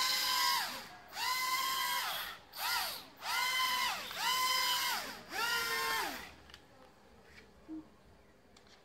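Small electric propeller motors of a toy RC motorbike drone whining, revved up and back down in about six short bursts as the throttle is worked. The bursts stop about six seconds in.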